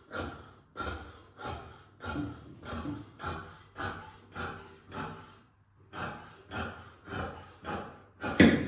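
Scissors cutting through trouser fabric in a steady run of snips, two to three a second, with a short pause about halfway through and one louder snip near the end.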